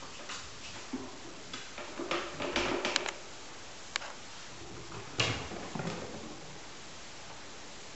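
Kittens scampering and pouncing, their landings and scrambling paws making scattered light thumps, clicks and scuffles. These are busiest about two to three seconds in and again just after five seconds.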